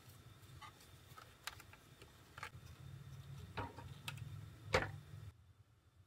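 Scattered clicks and knocks of a Chogokin Thousand Sunny model ship being handled and set down on a tabletop, with a low hum underneath. The loudest knock comes near the end, then the sound cuts off.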